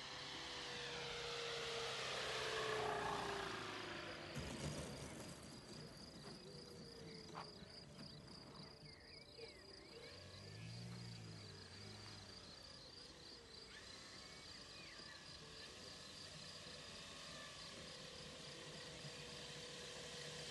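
Engine and propeller of a radio-controlled model Piper plane passing low on its landing approach, the tone falling as it goes by, with a few knocks about four seconds in as it touches down on grass. It then runs at low throttle through the rollout, and its sound grows louder again near the end as it taxis closer.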